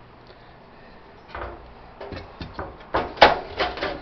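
Metal parts of a Coleman camp stove's burner assembly being handled and worked apart: short knocks, clinks and scrapes that start about a second and a half in and come thicker toward the end.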